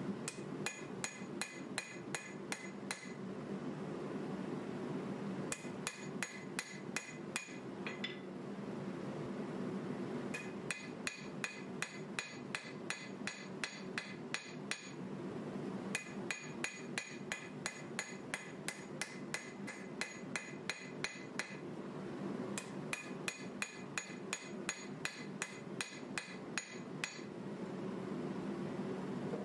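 Hand hammer striking a red-hot 1095 steel knife blank on an anvil, forging the blade: runs of ringing blows, about three or four a second, broken by short pauses.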